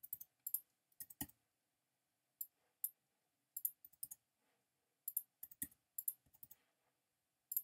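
Computer keyboard keys and mouse buttons clicking as numbers are typed in: short, light clicks in irregular ones, pairs and small clusters.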